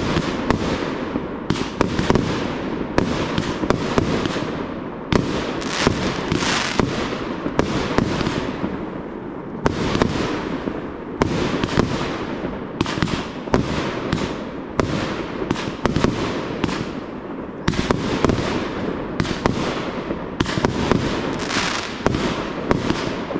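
Aerial fireworks display: shells bursting in quick succession, about one to two bangs a second, each bang followed by a fading hiss.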